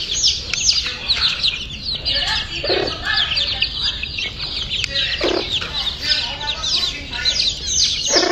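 A brood of chicken chicks peeping constantly in many overlapping high, falling cheeps, while the mother hen gives three short low clucks.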